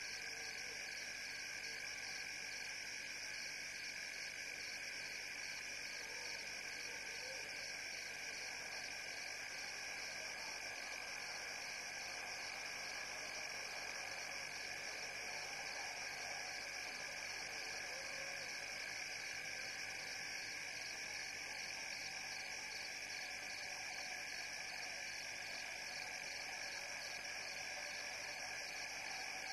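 Steady night-time chorus of calling frogs and insects: several continuous high-pitched trills at different pitches, one of them pulsing rapidly.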